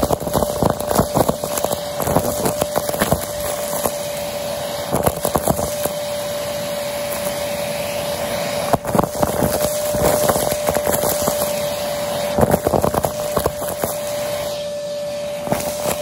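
Vacmaster vacuum running with a steady whine at its open hose nozzle, under dense, irregular crackling and clicking as dry dirt and debris crunch and rattle.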